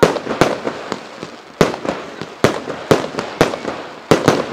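Aerial fireworks bursting overhead in a rapid, irregular series of sharp bangs, about eight in all, with two close together near the end and each report trailing off in an echo.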